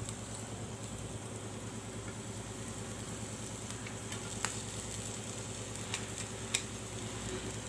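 Ground horse gram paste and spice masala sizzling in oil in a pan while being stirred, with a few sharp clicks of the spoon against the pan.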